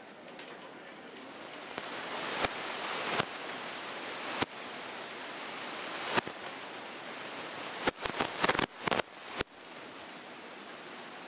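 Snowstorm wind blowing as a steady hiss that builds over the first two seconds, with sharp clicks here and there and a quick cluster of them about eight to nine seconds in.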